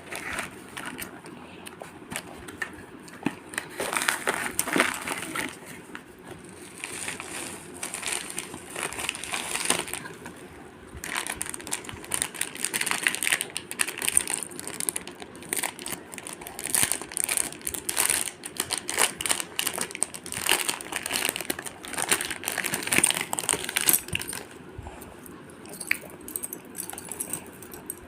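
Packaging being unwrapped by hand: irregular crinkling and rustling with small clicks, easing off in the last few seconds.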